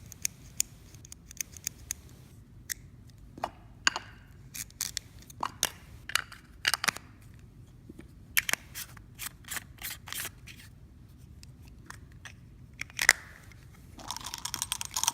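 Irregular small clicks and knocks of a camera lens being handled and turned close to the microphone, with a short rustle near the end.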